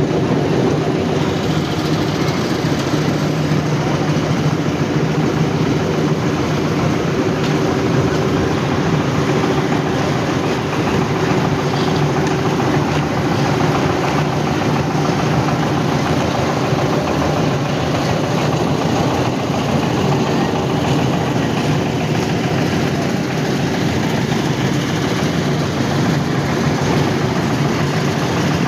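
Construction machinery engine running steadily at concrete road paving, a constant mechanical drone with no break.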